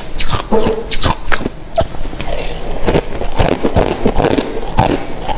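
Crushed ice being chewed close to the microphone: many sharp, irregular crunches in quick succession.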